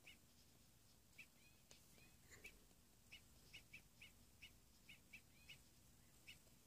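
Faint, short high-pitched chirps, about a dozen at uneven spacing, with a single soft click just under two seconds in.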